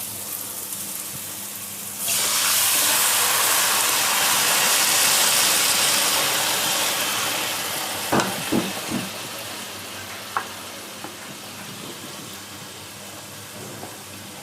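Boiled arhar (toor) dal poured into hot fried masala in a pan: a sudden loud sizzle about two seconds in that slowly dies down, with a few knocks against the pan around the middle.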